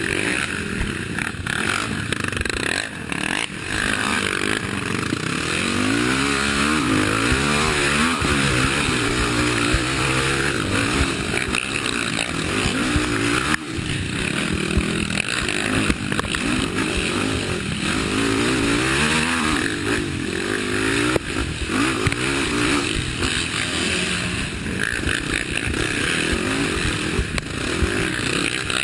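Race ATV (quad) engine revving up and down again and again as it is ridden over rough ground, the pitch climbing and dropping every second or two.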